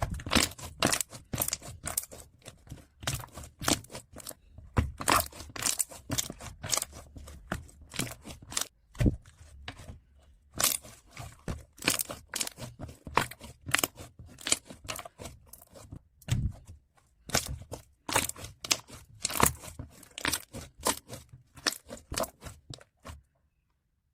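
Slime being worked by hand: a quick, irregular run of sharp sticky pops and clicks, several a second, with a couple of brief pauses, stopping shortly before the end.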